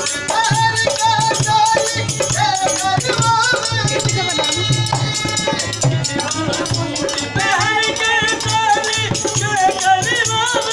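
Live Indian folk music: a voice singing to a harmonium and a dholak drum, with rattling percussion over a steady beat of about two drum thumps a second.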